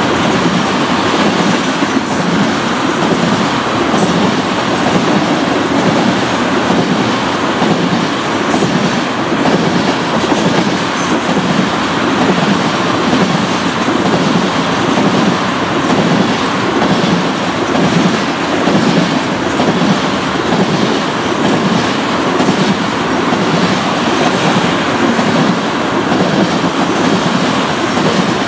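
Freight train tank cars rolling past: a steady rumble of steel wheels on the rails with a regular clickety-clack beat as the cars' wheel trucks go by.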